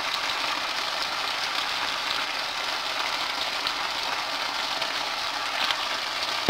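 Diced smoked pork chop, onions and bell peppers frying in oil in a pan, giving a steady sizzle.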